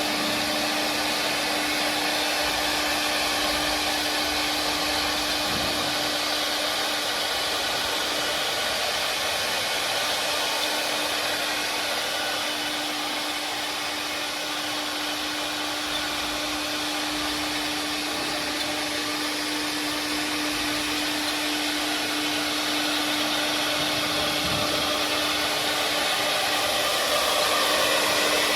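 Four-head CNC wood carving machine running: a steady hiss of the spindles and cutting, with a constant hum under it. It dips slightly in loudness midway and rises a little near the end.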